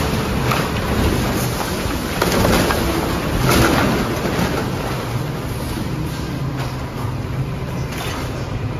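A garbage truck's engine and hydraulics run in a steady low rumble while bagged trash slides out of the raised rear body and drops into the transfer-station pit with rustling and soft thuds. The clatter is heaviest a few seconds in and eases off as the load empties.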